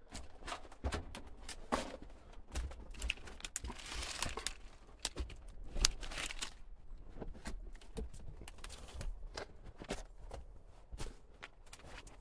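Footsteps on the rocky floor of a mine tunnel: an uneven run of short scuffs and clicks.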